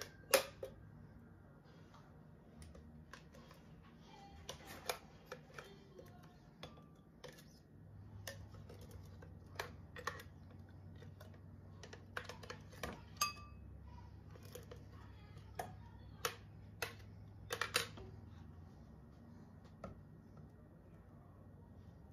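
Scattered light taps and clicks of kitchen utensils and glassware while a frozen drink is prepared, one tap ringing briefly about 13 seconds in, over a faint low hum.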